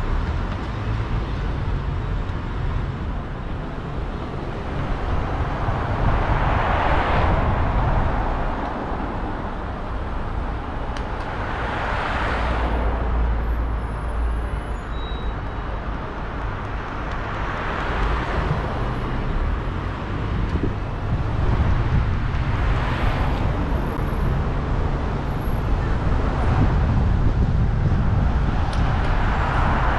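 Urban street traffic heard from a moving car: a steady low road rumble, with other vehicles swelling past about every five or six seconds.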